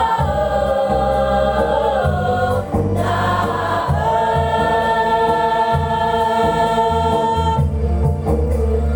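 Mixed choir singing long held chords over an amplified instrumental accompaniment; the voices thin out near the end while the accompaniment carries on.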